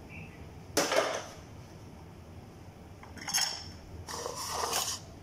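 Kitchen dishes and utensils being handled: a sharp clatter about a second in, then a short clink and a longer scraping sound near the end.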